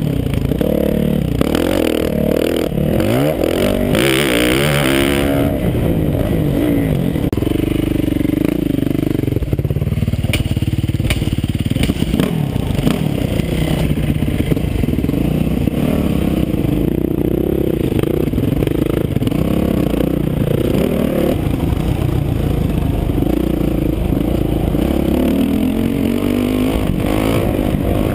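Motocross dirt bike engine revving up and falling back again and again as it is ridden around a dirt track, heard from the rider's helmet camera. There is a brief hiss about four seconds in.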